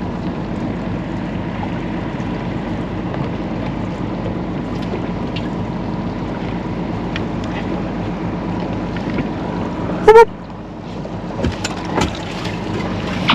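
Boat motor running steadily, with wind on the microphone. About ten seconds in, a short rising chirp sounds and the motor noise drops away, leaving a few light knocks.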